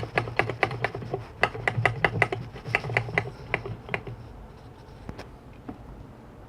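Rapid light clicks or taps, about four to five a second, stopping about four seconds in, over a steady low hum.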